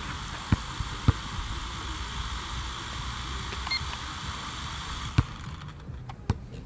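A few sharp plastic clicks from a handheld toy-drone remote controller as its sticks and buttons are worked for calibration, over a steady background hiss. A brief high beep comes about halfway through.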